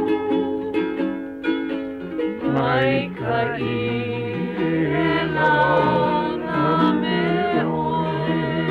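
Music with plucked string instruments: many short, sharply struck notes over sustained pitched tones.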